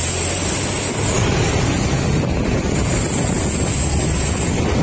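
Truck under way, its engine running with a heavy rumble and wind buffeting the microphone. A thin, high, steady whine sounds for about the first second and comes back partway through.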